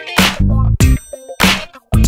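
Electronic background music with a heavy bass line and a sharp, regular beat about every half-second.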